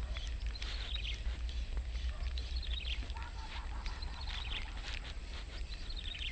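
Wind rumbling steadily on the microphone, with small birds chirping in short high bursts about every second and a half.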